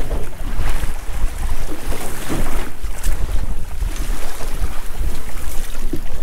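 Wind buffeting the microphone in a heavy, gusting low rumble, with sea water splashing at the boat's side.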